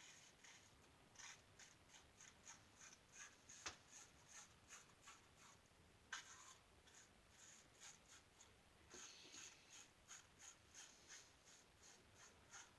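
Faint, short scraping strokes of a single-edge safety razor with a GEM stainless blade cutting through stubble on lathered skin, about two to three strokes a second, with a couple of sharper clicks along the way.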